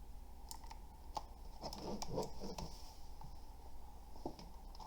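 A few scattered clicks and light scraping and knocking from handling a budget plastic mechanical keyboard, with a denser cluster of handling noise about two seconds in.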